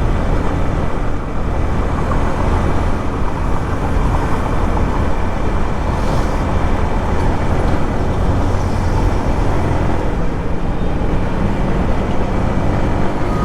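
Yamaha MT-15's 155 cc single-cylinder engine and exhaust running at a steady cruise, its note holding level with no revving up or down, under a dense rush of wind and road noise.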